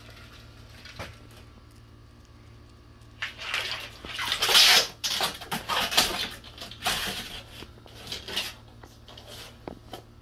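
Water splashing in a plastic kiddie pool as a monitor lizard scrambles out of it: a run of loud splashes starting about three seconds in and lasting a few seconds, then a few smaller ones.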